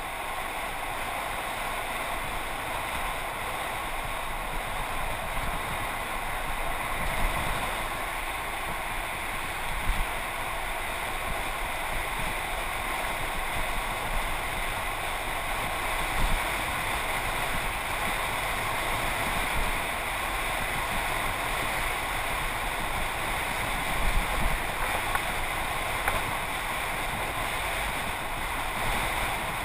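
Steady rushing noise of a Mongoose mountain bike riding fast on an asphalt road: wind buffeting the action camera's microphone along with tyre noise, and a few brief knocks.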